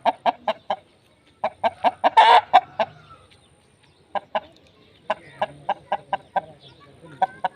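Aseel rooster clucking in quick runs of short, sharp notes, about five a second, in several bursts with short pauses between them. A short harsh squawk-like burst cuts in about two seconds in.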